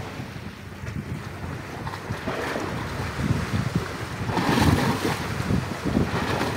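Wind buffeting the microphone over small sea waves lapping and splashing against rocks. A louder wash of surf comes about four and a half seconds in.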